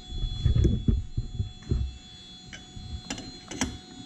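Metal tongs handling a hot plaster investment flask inside an open burnout furnace: dull low knocks in the first two seconds, then two sharp metallic clinks about three and three-and-a-half seconds in, over a steady hum.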